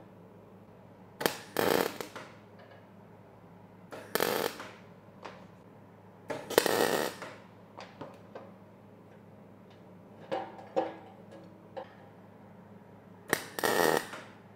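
MIG welder striking short tack welds: four crackling, sputtering bursts of the arc, each under a second long, with a few light clicks between them over a steady low hum.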